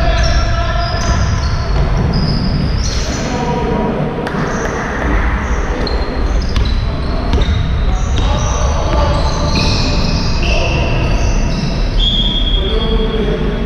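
Indoor basketball game: sneakers squeaking again and again on the court floor and the ball bouncing, with players' voices.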